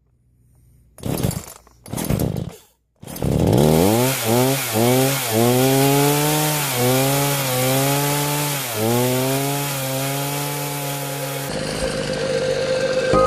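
Gasoline two-stroke chainsaw: after two short bursts of noise, the engine starts about three seconds in, climbs to high revs, and runs at full throttle, its pitch dipping again and again as the chain bites into wood.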